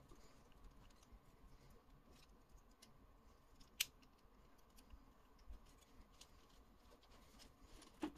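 Faint clicks and taps of a plastic Dicelings transforming toy's parts being handled and snapped into place, with one sharper click about four seconds in.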